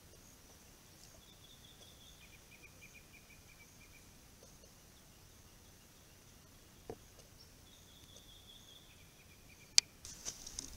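Faint bush ambience: a steady high hiss with a small animal's trilled call, a higher pulsed note stepping down to a lower one, heard twice. A single sharp click near the end is the loudest sound, followed by a brief run of crackling clicks.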